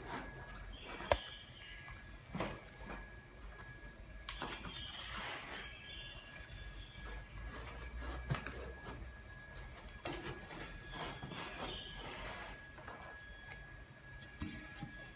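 Intermittent handling noises while 3D printer accessories and the glass bed plate are taken out of the packaging: scattered knocks and clicks, a sharp click about a second in, and stretches of rustling packing material, over a faint steady high tone.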